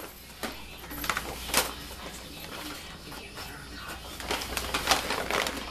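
A brown paper bag rustles and crinkles in a string of short, sharp crackles as a dog noses into it and tears at it. The crackles are densest about four to five seconds in.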